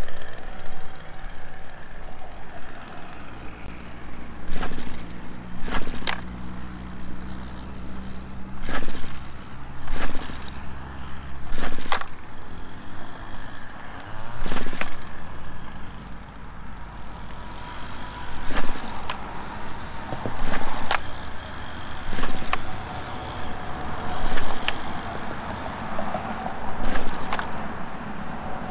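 Stihl FS 190 R two-stroke string trimmer running, its engine revved up in short surges every second or two over a lower running note.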